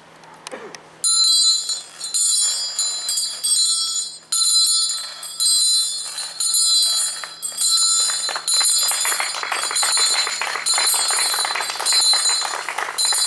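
A muñidor's small bronze handbell rung by hand over and over, starting about a second in: the confraternity's summons to mourn a dying brother. From about eight seconds in, a denser rattling noise joins the ringing.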